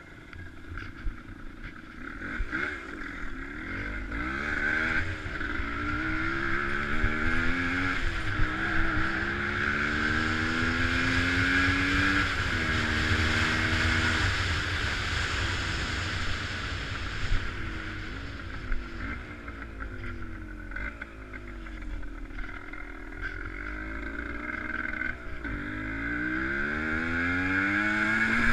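Car engine accelerating through the gears, its pitch climbing and dropping back at each shift, then winding down as it coasts and revving up again near the end. A steady rush of tyre and wind noise rises with speed.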